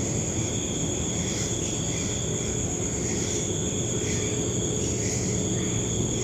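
Night insects trilling steadily in two high, unbroken tones, swelling faintly about once a second, over a steady low background rumble.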